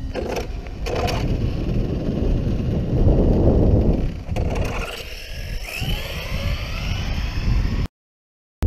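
Traxxas X-Maxx RC monster truck pulling away on asphalt: tyre and wind rumble with a couple of sharp knocks early on, and the electric motor's whine rising in pitch about halfway through as the truck speeds up. The sound drops out briefly near the end.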